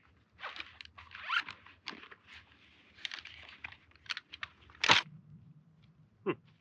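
Folding camp chair being unpacked and set up: nylon stuff sack and seat fabric rustling, with sharp clicks as the frame poles snap into place, the loudest about five seconds in.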